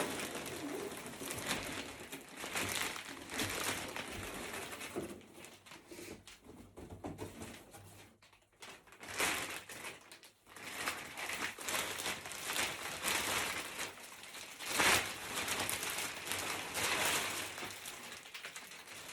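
Cardboard box and plastic packaging handled and opened: irregular rustling and crinkling, with a louder burst about fifteen seconds in.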